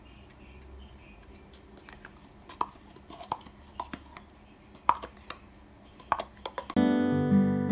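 A scattering of sharp, light clicks and taps of kitchen utensils and dishes, some with a short ring. Near the end, strummed acoustic guitar music starts abruptly.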